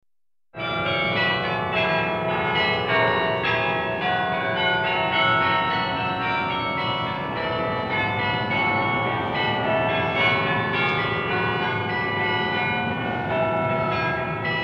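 Church bells ringing a tune, starting suddenly about half a second in, with strikes coming in quick succession and their ringing overlapping.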